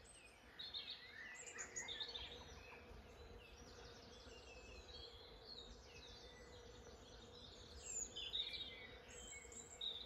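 Faint, steady humming of many bees pollinating a flowering rowan tree, with birds chirping and twittering over it, busiest about a second in and again near the end.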